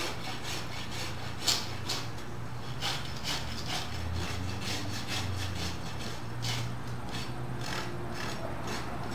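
Farrier's hoof rasp scraping across a horse's hoof in a series of strokes, roughly one a second.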